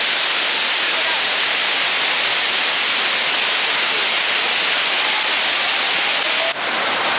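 Tegenungan Waterfall pouring close by: a loud, steady, hissing rush of falling water that dips for a moment about six and a half seconds in.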